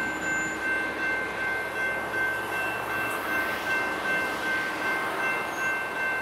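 Railroad grade-crossing bells ringing steadily in a pulsing rhythm while the crossing gates rise after the train has cleared.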